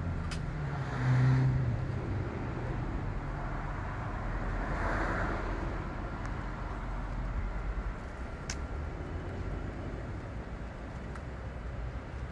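Road traffic in the background, with a vehicle passing about a second in and another swelling by around five seconds in, and two light sharp clicks.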